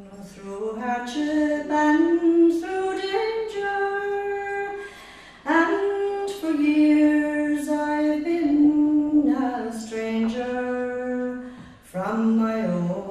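A woman singing solo and unaccompanied into a microphone, a slow traditional Munster song air in long held, ornamented notes. She pauses briefly for breath about five seconds in and again near the end.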